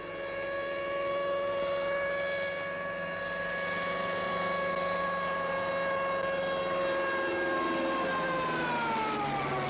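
Piper Super Cub light aircraft flying low overhead: a steady engine and propeller drone that drops in pitch near the end as the plane passes.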